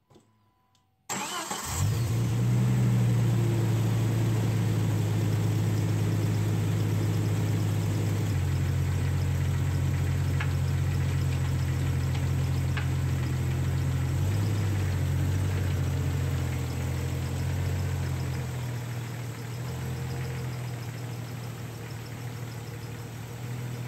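A 1998 Jeep Cherokee's 4.0-litre inline-six starting about a second in and then idling, heard from underneath the engine. The idle drops to a lower, steady pitch after several seconds, and the sound grows fainter near the end.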